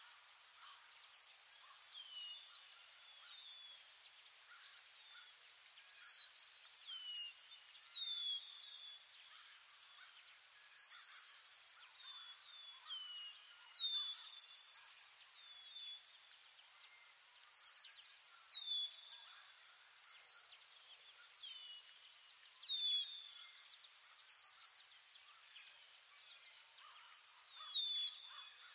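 Ambient forest soundscape: a steady, fast-pulsing high insect trill, with short, falling bird chirps repeated every second or so.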